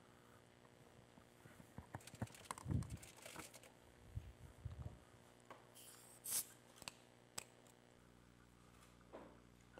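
Faint microphone handling noise: scattered rustles, clicks and bumps as a microphone is fastened and handled, with a louder rustle about six seconds in.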